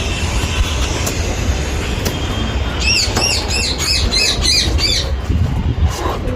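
A bird calls a quick series of about eight short, arched squawks in the middle, over a steady low rumble.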